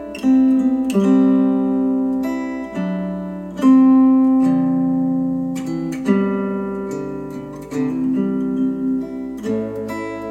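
Instrumental acoustic guitar music played back through KEF LS50 Meta bookshelf speakers: plucked chords ring out and fade, a new chord every second or two.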